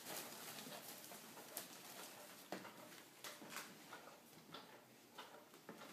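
Faint, scattered light taps and rustles, a handful of separate ticks, as a cat moves among foil helium balloons and their ribbons.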